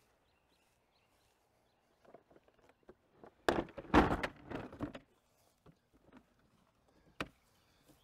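A Keter plastic folding workbench being opened out: a clatter of its legs swinging out and knocking into place, loudest about halfway through, then a single sharp click near the end.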